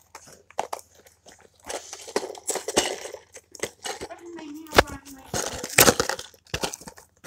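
A cardboard toy box being pulled open and handled: irregular crackling, scraping and sharp clicks and knocks, loudest about five to six seconds in.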